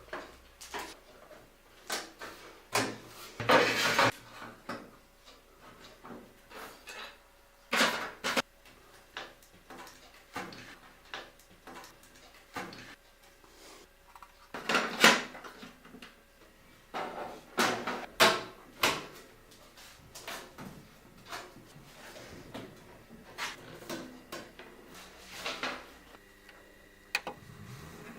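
Irregular clicks, knocks and light clattering of computer parts and case panels being handled and fitted during a PC assembly. A faint steady hum starts near the end.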